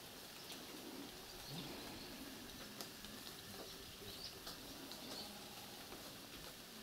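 Quiet outdoor ambience with a few faint, brief bird chirps.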